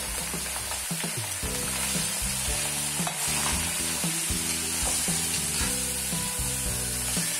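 Pieces of duck meat sizzling as they fry in hot mustard oil in a steel kadai, stirred with a metal spatula that scrapes and taps the pan now and then.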